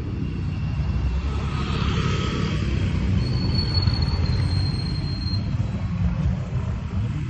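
Wind rumbling unevenly on the microphone of a handlebar-mounted phone as a bicycle rolls along, mixed with engine noise from motorcycles and cars on the road ahead. A thin, steady high tone sounds for about two seconds in the middle.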